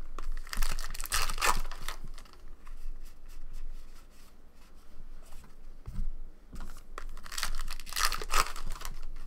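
Trading card pack wrapper being torn open by hand, ripping and crinkling in two loud spells, about half a second in and again near the end, with quieter rustling of cards being handled between.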